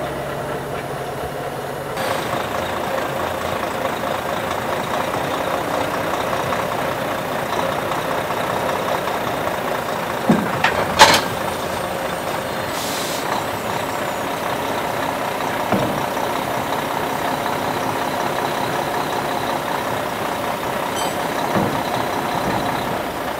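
Volvo FH truck's diesel engine running steadily while the truck is manoeuvred slowly onto levelling blocks, with a sharp clack about eleven seconds in and a short hiss of air from the brakes just after.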